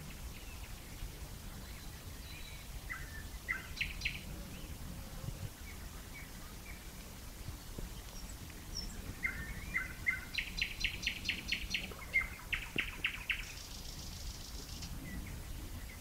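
Nightingale singing: a short phrase about three seconds in, then a longer phrase from about nine seconds with fast runs of repeated notes, ending in a high buzzy trill. A faint low rumble of background noise runs under it.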